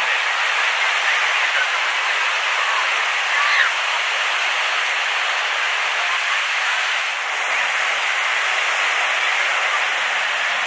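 Steady rushing roar of a KC-135E Stratotanker's four turbofan engines as it flies past, with a short high chirp about three and a half seconds in.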